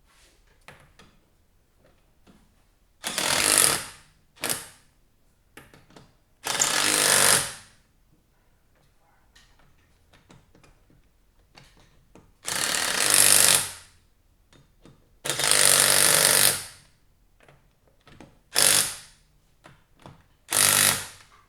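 Pneumatic or electric impact wrench hammering in bursts as it runs the lug bolts into a wheel hub: about eight bursts, the longest about a second and a half, some only a blip.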